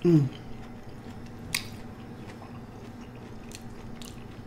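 A person chewing a mouthful of Brussels sprouts, with soft wet mouth clicks and one sharper click about a second and a half in, over a low steady hum. A brief falling 'mm' of voice opens it.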